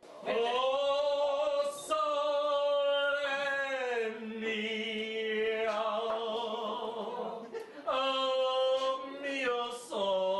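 A man singing unaccompanied in long held notes with vibrato, with a brief break near the end before a new phrase.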